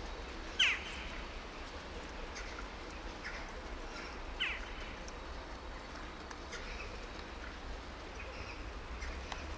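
Outdoor background with a steady low rumble, and two short bird chirps that sweep downward in pitch, about half a second in and again near four and a half seconds, with a few fainter chirps between.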